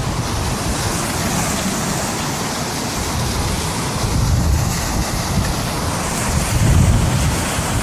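Strong storm wind buffeting the microphone in gusts, over a steady rush of surf.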